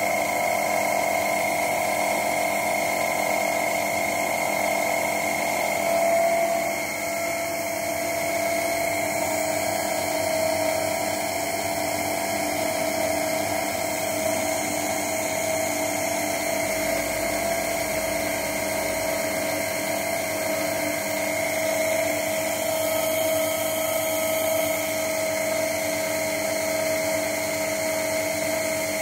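A car windscreen wiper motor, run from a computer power supply, driving a Sherline mini lathe with a steady whine as the spindle turns a metal bar. The pitch dips slightly about six seconds in.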